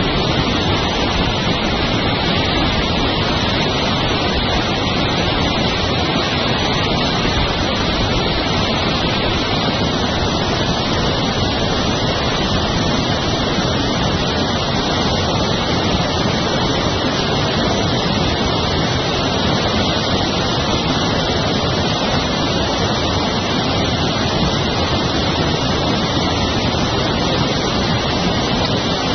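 Water rushing steadily down a sloped fish-harvesting chute, a constant, even noise that does not change.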